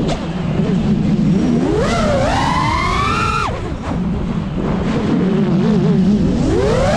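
GEPRC Mark5 FPV quadcopter's brushless motors and propellers whining. The pitch climbs as the throttle is pushed, drops sharply about three and a half seconds in, wavers low, then climbs again near the end.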